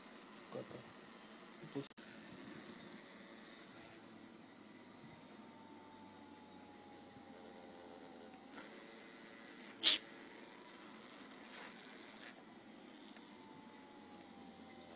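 Small 12-volt DC motor with a screw fixed on its shaft as a bit, running with a steady high whirring hiss as the spinning screw bores into a white plastic piece. A sharp click about ten seconds in.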